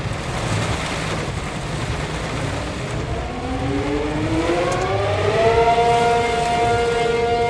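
ACA Penetrator 50 outdoor warning siren winding up for a tornado warning: a rising tone starts about two and a half seconds in, climbs steadily and levels off into a steady wail a few seconds later. Rain and wind noise run underneath.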